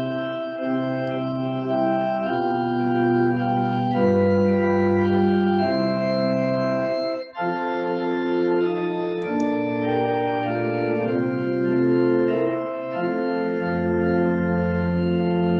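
Two-manual church organ playing slow held chords over a low bass line, with a short break between phrases about seven seconds in.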